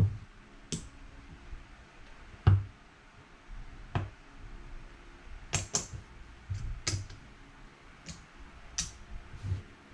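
Casino chips clicking against one another and onto the table felt as a hand counts and moves them: scattered sharp clicks, about ten in all.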